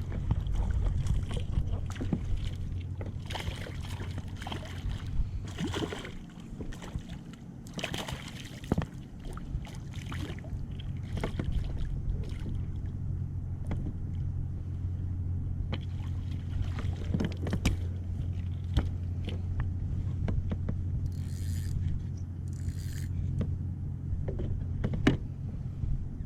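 Water splashing and lapping against a kayak's hull, with scattered light knocks on the boat over a steady low hum.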